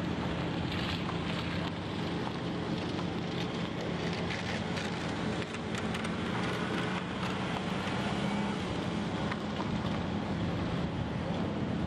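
Steady hum of distant heavy machinery under wind noise, with a car driving past close by around the middle.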